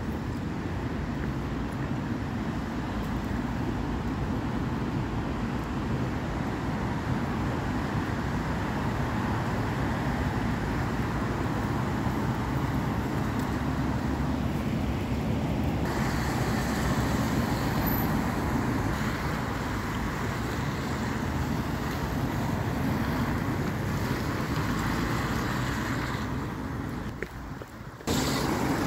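Steady road traffic on a wet road: a continuous wash of engines and tyre hiss from passing vehicles, growing hissier about halfway through and dipping briefly near the end.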